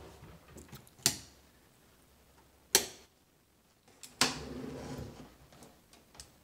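Three sharp taps or knocks, about a second and a half apart, the last followed by about a second of rustling, with a few faint ticks in between.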